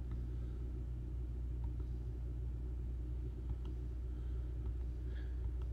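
Dishwasher running in the background, a steady low hum, with a few faint clicks over it.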